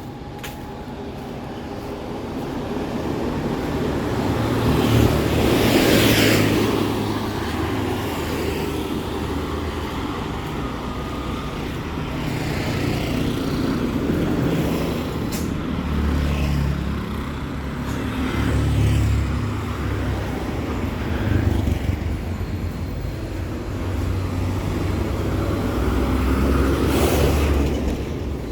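Street traffic: a steady rumble of engines, with vehicles passing close by, the loudest about six seconds in and again near the end.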